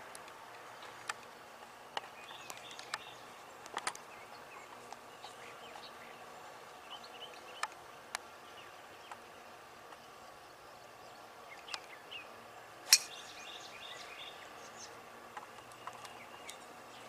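A golf driver strikes a ball off the tee with one sharp, loud crack about 13 seconds in. Faint bird chirps and a few light ticks sound around it.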